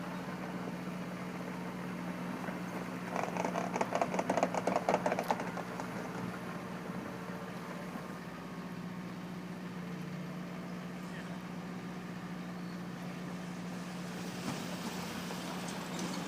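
Wacker Neuson EZ53 mini excavator's diesel engine idling with a steady hum. From about three to five seconds in, a rapid, fast-repeating mechanical rattle rises over it.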